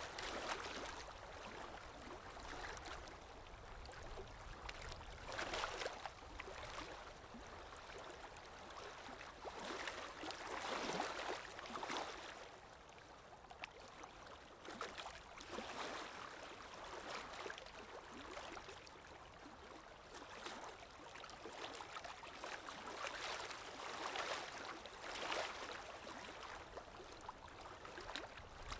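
Recorded water ambience of flowing, gently splashing water, swelling and easing every few seconds.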